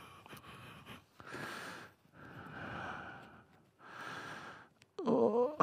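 A person breathing close to the microphone: three slow, heavy breaths, each lasting about a second, followed near the end by a short, louder sound from the voice.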